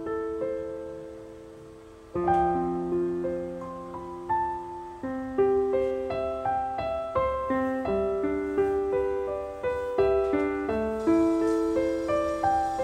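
Background solo piano music: a chord fades out over the first two seconds, then the piano picks up again with a steady run of struck notes left to ring.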